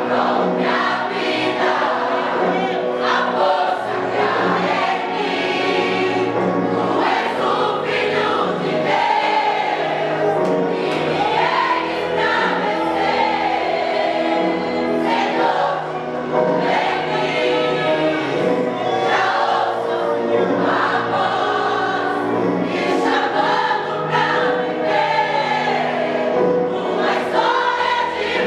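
A gospel vocal group singing in harmony over instrumental backing, in a live performance of a Brazilian gospel medley.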